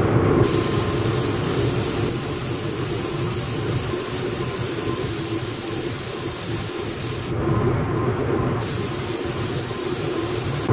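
Steady rushing air with a low hum from a powder-coating booth: the booth fan running, with the hiss of the powder-coating gun's air. The upper hiss drops out for about a second, about seven and a half seconds in.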